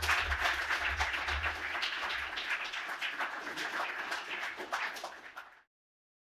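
Audience applauding, a dense patter of many hands clapping that cuts off abruptly after about five and a half seconds.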